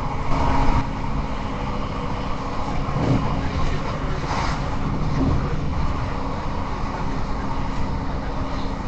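Running noise heard from inside a Class 158 diesel multiple unit at speed: a steady rumble of wheels on the rails under the hum of its underfloor diesel engine, with a brief louder surge near the start.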